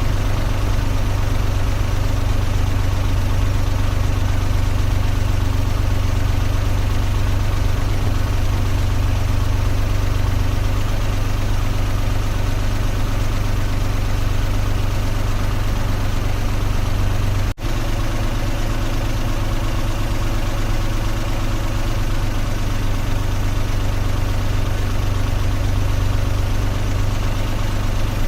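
Car engine idling: a steady, unchanging low hum, broken once by a split-second gap about two-thirds of the way through.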